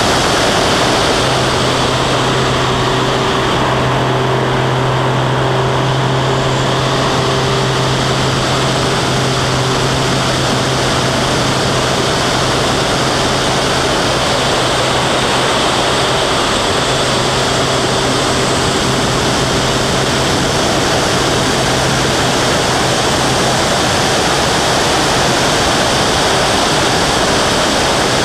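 Loud, steady rush of wind over a wing-mounted camera on a small aerobatic biplane in flight, with the plane's engine and propeller droning steadily underneath.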